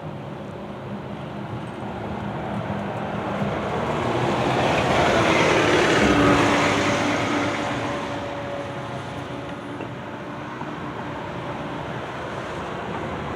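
A vehicle passing by outdoors: its noise swells gradually to a peak about six seconds in, then fades away.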